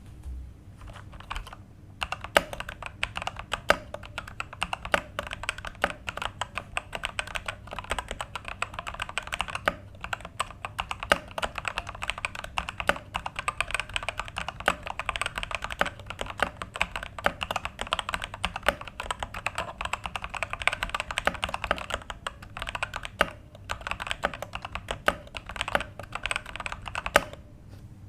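Typing on an Ajazz AK871 mechanical keyboard with red linear switches: a fast, continuous patter of keystrokes with occasional louder strokes and a few brief pauses.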